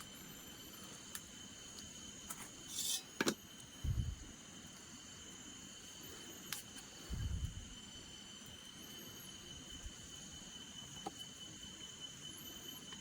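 Insects trilling steadily at a high pitch, with a few short, higher chirps above them. A brief rustle and click come about three seconds in, followed by two low thumps.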